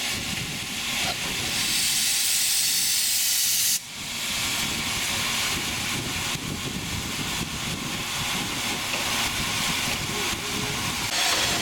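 Narrow-gauge steam locomotive standing and hissing steam. A loud, high hiss cuts off suddenly about four seconds in, and a softer hiss carries on and grows louder again near the end.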